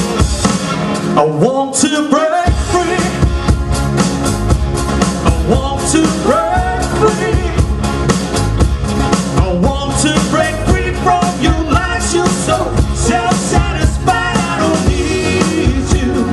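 Live rock and pop band playing: male and female vocals over electric guitar, bass guitar and drum kit. The bass and drums drop out for a moment about a second and a half in, then the full band comes back.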